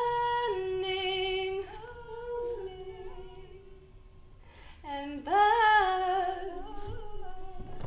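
A woman singing solo and unaccompanied, holding long notes on the word "burning". The voice drops softer after about two seconds, then a new phrase swoops up about five seconds in and settles into a long held note.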